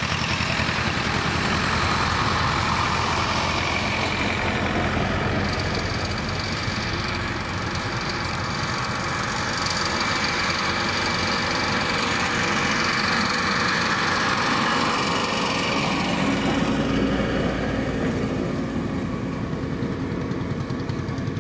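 Engines of vintage farm tractors running at low speed as they drive past one after another, a steady, even engine beat. A deeper low rumble swells briefly about two-thirds of the way through as a tractor comes close.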